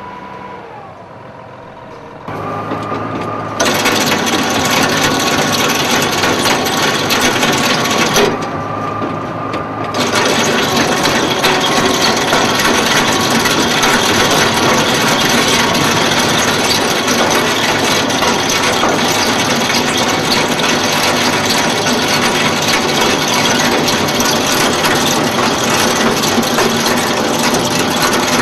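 A square-bale feed-out machine running, its conveyor and spinning rotor tearing apart hay bales and flinging the hay out: a dense, continuous mechanical noise. It starts up about two seconds in, gets loud a second later, dips briefly around eight seconds, then runs on steadily, with a steady whine under it for the first ten seconds or so.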